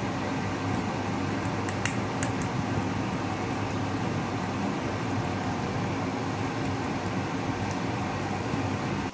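Steady mechanical whir like a fan running, with a low hum under it and a couple of faint clicks about two seconds in.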